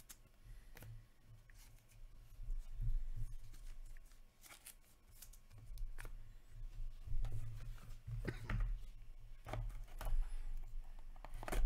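Trading cards and plastic card sleeves being handled and slid against each other, with scattered clicks and rustles that get busier and louder in the second half as a foil card pack is handled. A low hum sits underneath.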